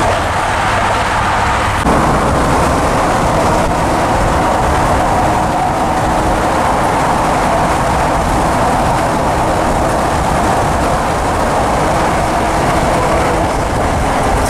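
Steady road and engine noise inside the cab of a 1996 Chevy G30 one-ton van with a small-block Chevy V8, cruising at highway speed. The sound shifts slightly about two seconds in, where a low steady hum drops away.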